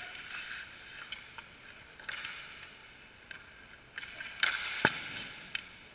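Hockey skate blades scraping the ice in three rasping strokes, with light clicks of sticks. A sharp knock about five seconds in is the loudest sound.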